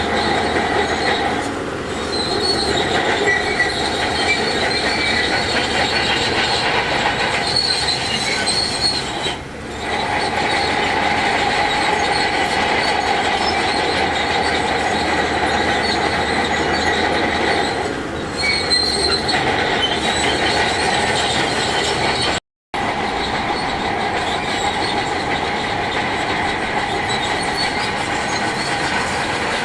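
Crawler bulldozer working, its steel tracks squealing and clanking in a steady metallic screech over the diesel engine. The sound dips briefly a few times and cuts out for a moment about three-quarters of the way through.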